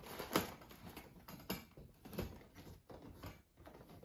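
Handling noise from a collapsible softbox being opened out and fitted onto a light stand: irregular rustling of the fabric and light knocks, the loudest about half a second in.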